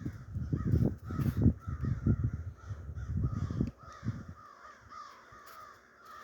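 A flock of crows cawing over and over, many short falling calls overlapping. During the first half there are loud low thuds of footsteps close by, which stop a little before the middle.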